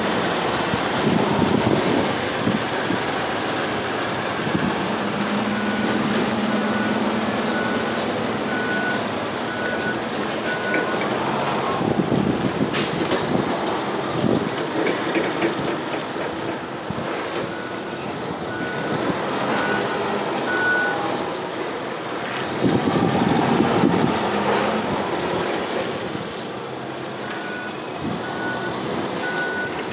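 Toyota forklift running as it manoeuvres, its reversing alarm beeping in three spells of evenly spaced beeps, with the engine getting louder for a moment about two-thirds of the way through.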